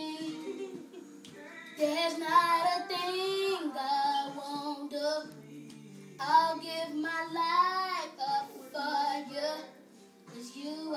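A boy singing an R&B song solo, in two long phrases with vibrato and a short break between them.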